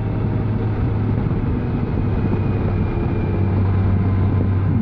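Honda Gold Wing motorcycle cruising at steady speed: an even low engine hum under a constant rush of wind and road noise.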